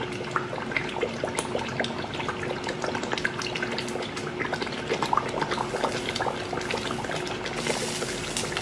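Blended tomato sauce frying in oil in a pot, a steady sizzle and bubble with many small pops, as it is fried down to cook out its sour taste.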